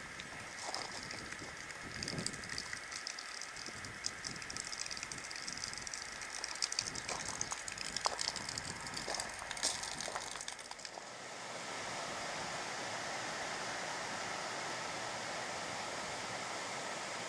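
Irregular crackling and clicking, then about two-thirds of the way through a small mountain stream flowing over stones takes over as a steady rushing.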